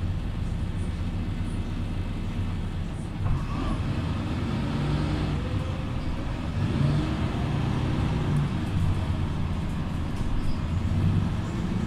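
Mercedes-Benz Conecto LF city bus heard from inside the passenger cabin while under way: the diesel engine runs with a steady low hum over road noise. Its note rises and falls twice, about four and seven seconds in.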